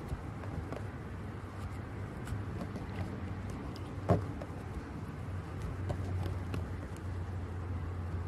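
Hands squishing and stretching a clear glitter slime: small sticky clicks and pops, with one louder pop about four seconds in, over a steady low hum.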